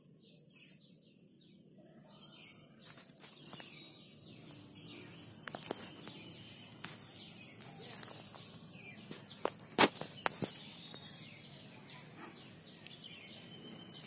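Insects droning steadily in two high, continuous tones, with short chirps and a few sharp clicks, the loudest click about ten seconds in.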